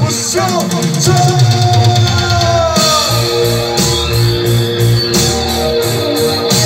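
A live rock band with keyboards and electric guitar playing a song. Long notes slide down in pitch over the first few seconds, then a steady beat comes in about three seconds in.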